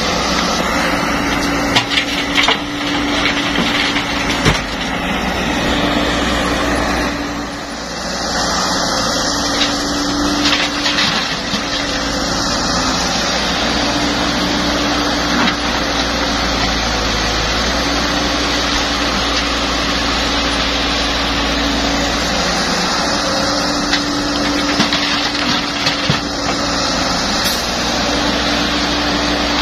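Caterpillar E120B hydraulic excavator at work: its diesel engine runs steadily under a hum that drops out and comes back several times. Rock and dirt crunch, with scattered sharp knocks, as the bucket digs and dumps.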